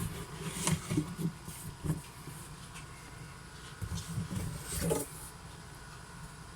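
Cardboard product box being pulled out of its outer box: irregular soft scraping and bumps in the first couple of seconds, then another short flurry about four to five seconds in.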